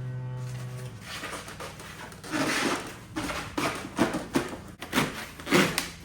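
Styrofoam packing being pushed and rubbed into place around batteries in a case, squeaking and scraping in a string of short bursts.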